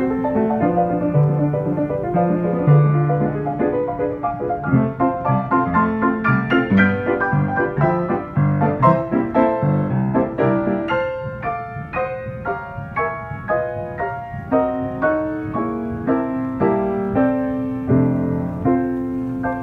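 Steinway piano with an Aeolian pneumatic player action playing a perforated paper music roll: a busy run of struck piano notes and chords with no one at the keys. It closes on a held chord that rings and fades near the end.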